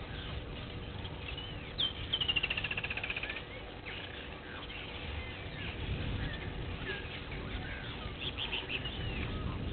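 Wild birds calling and chirping. About two seconds in comes a rapid run of repeated high notes that falls slightly in pitch, and near the end there is a cluster of quick chirps.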